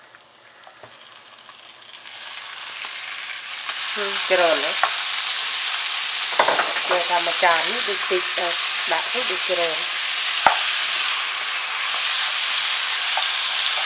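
Chicken pieces sizzling in hot oil with lemongrass paste and garlic as they are stir-fried. The sizzle builds over the first few seconds as the heat comes up, then holds steady and loud, with a single sharp knock about ten seconds in.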